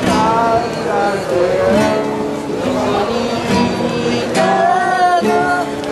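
Acoustic guitar strummed with a voice singing along.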